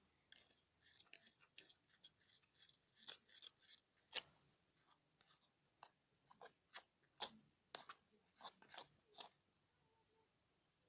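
Clear-glue slime being stirred in its container just after activator drops are added, as it begins to thicken: faint, irregular clicks and crackles.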